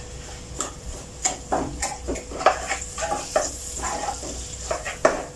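A spatula scraping and tapping irregularly against a non-stick wok as a chili-garlic sauce with sweet soy and oyster sauce is stirred, with a light sizzle underneath.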